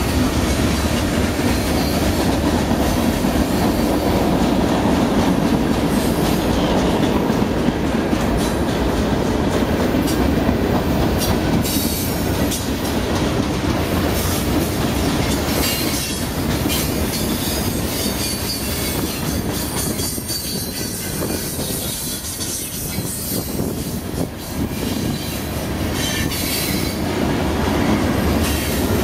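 Freight cars of a long CSX manifest train rolling past: a steady rumble of steel wheels on rail with scattered clicks, easing a little about two-thirds of the way through.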